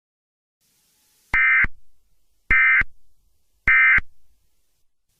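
Emergency Alert System end-of-message data burst: three short, identical bursts of warbling digital tones about a second apart, the coded signal that closes an alert.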